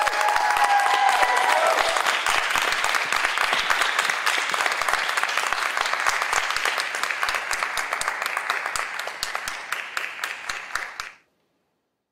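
Audience applauding a graduate, with a few voices whooping and cheering in the first couple of seconds. The clapping thins to scattered separate claps and then cuts off abruptly about a second before the end.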